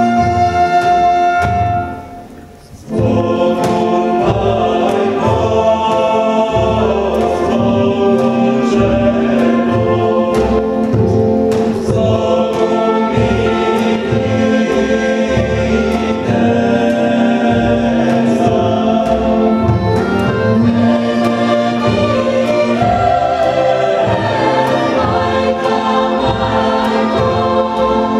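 Mixed folk choir singing a South Slavic folk song, accompanied by a folk string band with violins and double bass. A held note breaks off about two seconds in, and the choir and band come back in together a second later.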